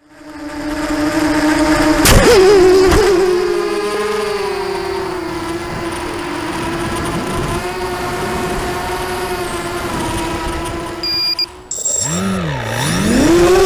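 Racing quadcopter's motors and propellers whining at a steady pitch. About two seconds in come two sharp knocks and the pitch wobbles. Near the end the sound cuts out briefly, then the pitch drops steeply and climbs back to a louder steady whine.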